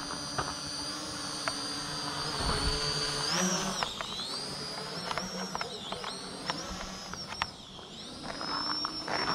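Quadcopter drone's propellers whining in flight, the pitch of the whine rising and dipping several times as the throttle changes.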